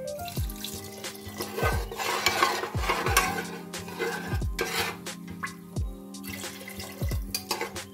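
Water poured from a glass into a pressure cooker of fried vegetables and rice, then stirred in with a slotted spoon. Background music with a steady bass beat plays along.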